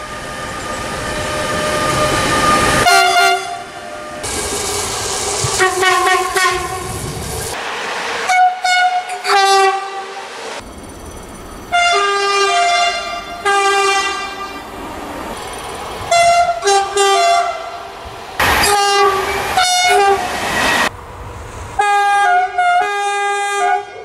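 Train horns sounding a rapid series of short, loud blasts, some stepping between two notes. The rush and clatter of a passing train runs between them, loudest over the first few seconds as an electric freight locomotive approaches.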